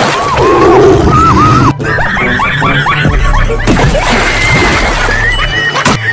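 Loud background music with gliding, warbling melodic lines, cut abruptly about two seconds in.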